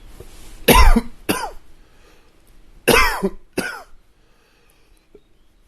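A man coughing: a breath drawn in, then two coughs in quick succession, and about two seconds later another pair of quick coughs, each with a voiced, throaty sound.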